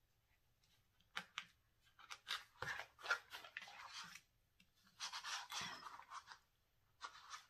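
Faint scratchy rustling and scraping of elastic cord being pulled through the holes of a planner cover as the cover is handled and turned over. It comes in several short bouts, starting about a second in.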